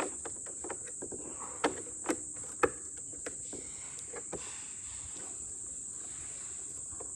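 A few sharp clicks and knocks of plastic robot-vacuum parts being handled during the first three seconds, over a steady high-pitched chirring tone.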